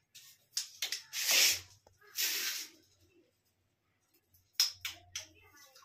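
Handling noises of marking and measuring against a tiled wall with a pencil and tape measure: two hissing, scratchy scrapes of about half a second each, about one and two seconds in, then a few clicks and a sharp tap near the end.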